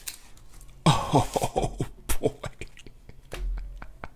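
Thin plastic protective film crackling as it is peeled off the back of a phone, a dense burst of crackles about a second in, then a few scattered ticks.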